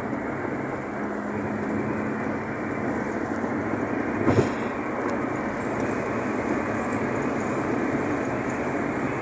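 Steady road and engine noise of a moving car heard from inside the cabin, with one short knock about four seconds in.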